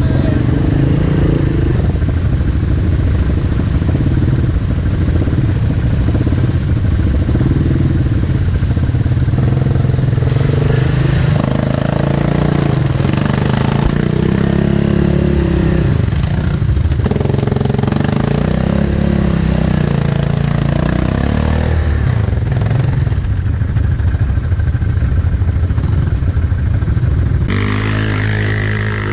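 ATV engine running continuously, its pitch rising and falling several times as the throttle is worked. Near the end the sound changes abruptly to a steadier engine note.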